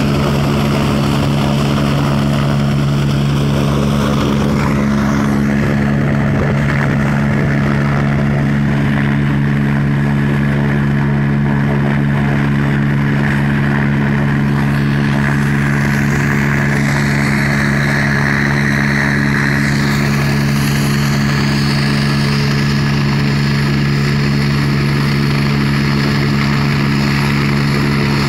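Helicopter sitting on the pad with its engines and main rotor running at a steady idle: a constant, loud drone that does not change.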